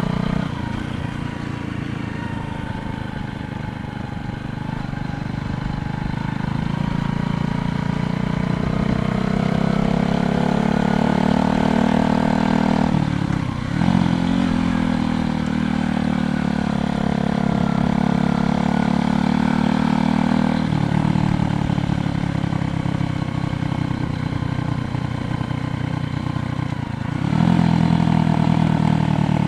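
Motor vehicle engine running close by, its pitch gliding up and down with sudden shifts about 13, 21 and 27 seconds in.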